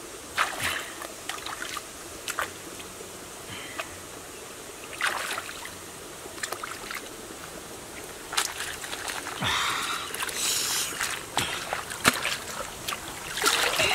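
Water splashing and sloshing as squid are rinsed by hand in a shallow stream, in short irregular splashes over the steady trickle of the stream. Busier, louder sloshing in the last few seconds as a wicker basket of squid is swished in the water.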